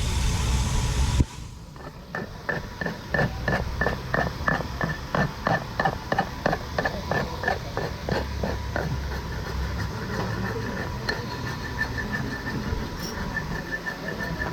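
Hammer striking steel in quick, even blows, about three a second, each with a short metallic ring, typical of a farrier's hammer on a horseshoe. The blows fade somewhat in the second half. They are preceded by a loud rushing noise that cuts off suddenly about a second in.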